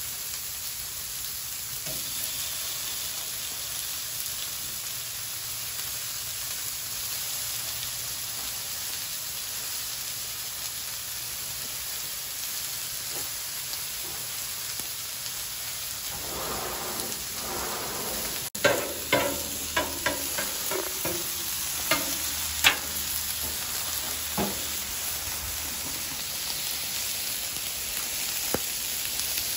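Venison patties and vegetables sizzling on a Blackstone flat-top griddle, a steady frying hiss. In the second half, sharp clicks and scrapes of a metal spatula against the griddle plate break in.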